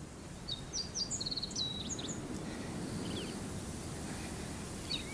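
Small songbirds chirping: clusters of short high chirps and a quick trill of repeated notes, once near the start and again near the end, over a steady low outdoor background rumble.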